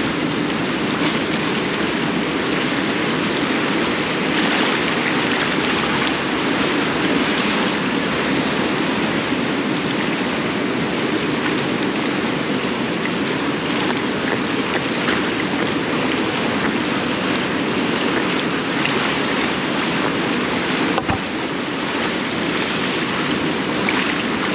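Seawater sloshing and washing around barnacle-covered pier pilings, a steady rushing wash of small waves.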